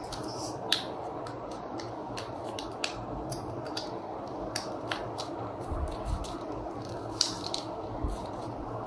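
Sheet of origami paper being folded and creased by hand: rustling and scattered small, sharp crinkles as fingers press and slide along the folds, over a faint steady hiss.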